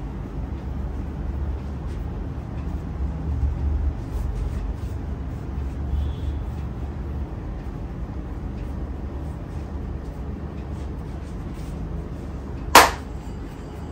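Steady low rumble with faint scattered clicks and rubbing. Near the end comes one loud, sharp crack during the head and neck massage.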